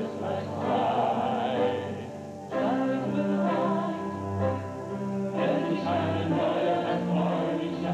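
Stage-musical music with a choir singing held notes over the accompaniment. About a third of the way in the upper voices drop away, leaving low sustained tones, and the fuller choral sound returns after about five seconds.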